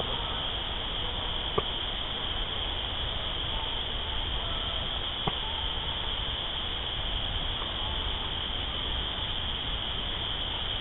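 Steady high-pitched night chorus of calling insects or frogs, recorded on a phone microphone, with two faint ticks about one and a half and five seconds in.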